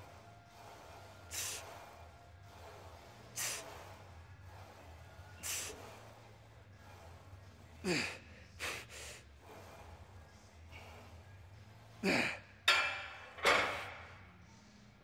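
A weightlifter's sharp, forceful breaths about every two seconds, straining under a heavy press. Later come louder grunts that fall in pitch and heavy gasping near the end, as the set gets hard.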